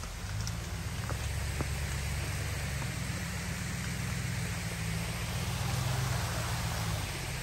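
Mountain creek running over rocks: a steady hiss of rushing water under a low rumble.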